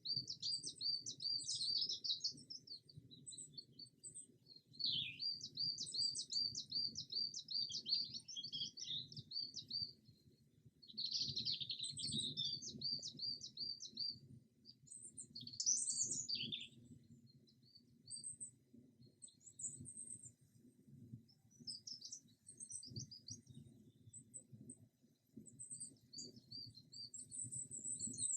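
Forest songbirds singing: phrases of quick, repeated high notes, each lasting a few seconds, with short pauses between them and fainter calls in the gaps.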